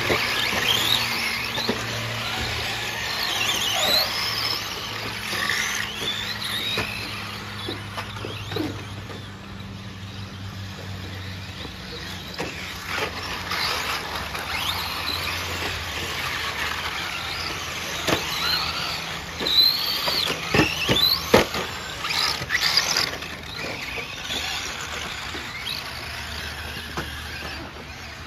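Electric radio-controlled rally cars racing on a dirt track: several motors whining, their pitch rising and falling as the cars accelerate and brake. A few sharp clacks come about two-thirds of the way through.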